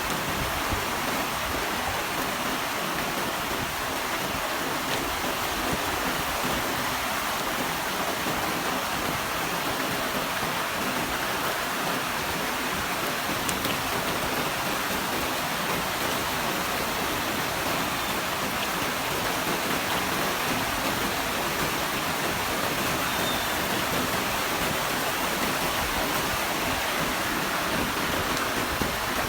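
Rain falling steadily, an even hiss with no thunder in it.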